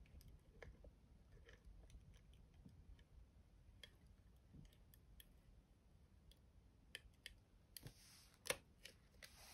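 Faint clicks and ticks of a Stampin' Seal Plus adhesive tape runner being run along the edge of a clear acetate sheet, with a short rasp and a sharper click near the end.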